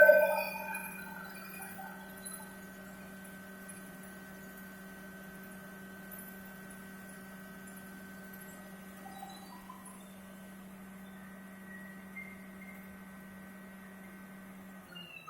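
Steady low electrical hum with a faint high tone above it, cutting off near the end. A ringing chime fades out in the first second.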